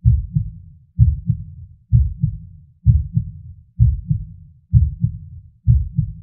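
Heartbeat: a steady double beat, lub-dub, repeating about once a second.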